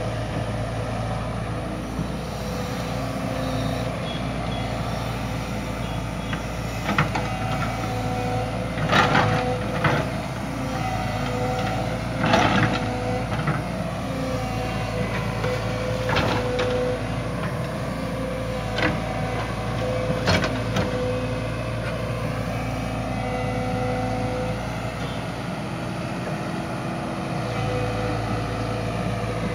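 JCB tracked excavator's diesel engine running steadily while it digs, with a steady whine that comes and goes and several sharp clanks and knocks, the loudest about twelve seconds in.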